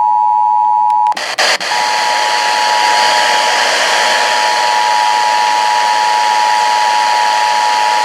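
Emergency Alert System attention tone: a loud, steady high-pitched tone. About a second in it cuts out briefly with a couple of clicks, then comes back with a hiss of static under it.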